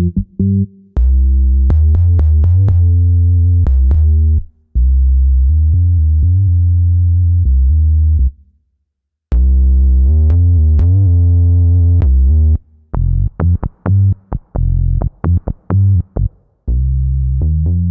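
Synth bass patches of a Roland FA-06/FA-08 workstation played one after another, each as a short riff of repeated deep notes with a sharp attack on every note. A pause of about a second falls near the middle before the next patch starts.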